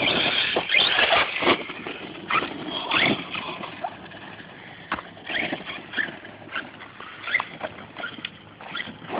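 Redcat Earthquake 8E RC truck's brushless electric motor whining up and down in short bursts of throttle, with several sharp knocks and clatter from the truck running over rough ground and landing.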